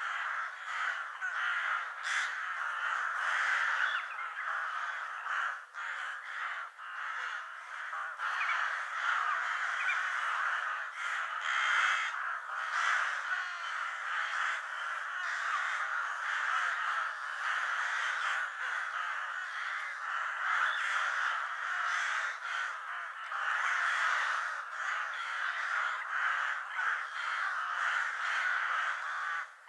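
A flock of ravens cawing, many calls overlapping in a continuous chorus.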